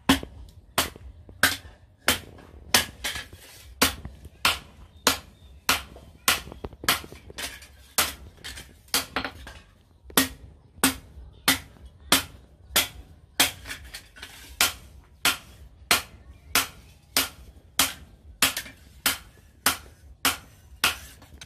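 Hand hammer forging a red-hot steel blade on a round steel post anvil: sharp, ringing metal-on-metal strikes, evenly paced at about one and a half a second, with a short pause about ten seconds in.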